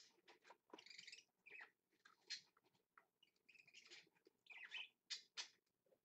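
Budgerigar chicks making faint, short raspy chirps in quick irregular clusters.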